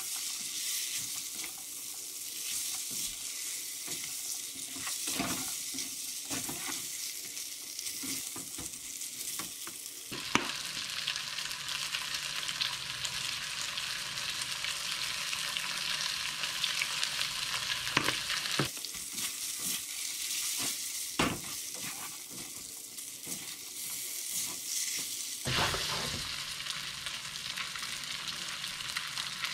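Food sizzling in a hot frying pan while it is stirred, with a few sharp knocks of the utensil against the pan. The sizzle is a steady high hiss that gets louder and softer a few times.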